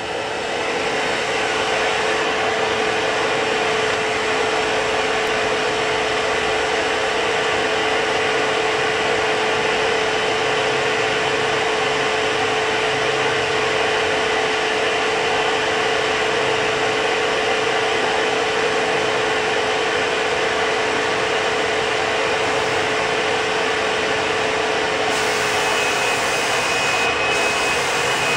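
Fuji Semi-PRO 2 HVLP spray system's two-stage turbine running steadily, a loud blower hiss with a constant hum. Near the end a brighter hiss with a thin high whistle joins in as the spray gun is triggered at a cabinet door.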